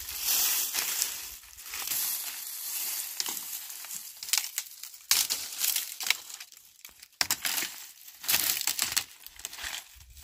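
Dry brushwood rustling, scraping and crackling as the branches are handled and dragged over dry leaves and stony ground, in uneven bursts with short pauses.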